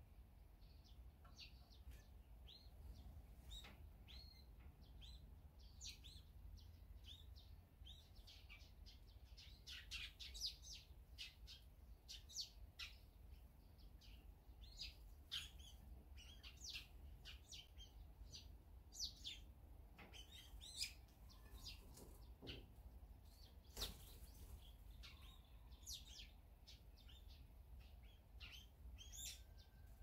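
Small songbirds chirping faintly in many short, high calls through the whole stretch, with a few sharp clicks among them.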